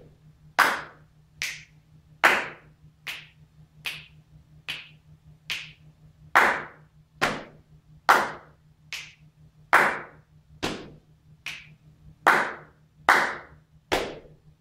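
Body percussion: a man's hands clapping and patting his thighs in a steady beat, a little faster than one stroke a second, with some strokes louder than others. A faint steady low hum lies underneath.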